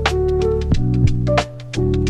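Background music: sustained keyboard-like notes over a steady beat of drum hits, with a brief drop-out of the low notes about one and a half seconds in.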